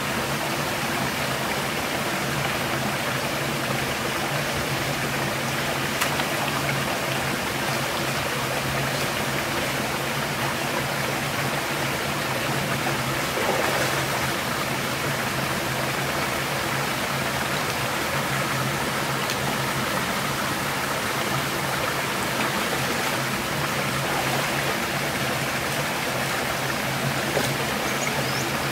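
Steady rush of flowing stream water, with a few small splashes as someone moves and reaches about in a waist-deep pool.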